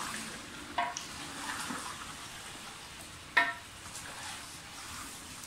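Raw chicken pieces sizzling and being stirred in hot oil in a large aluminium pot. The ladle knocks against the side of the pot twice, loudest and ringing about three and a half seconds in.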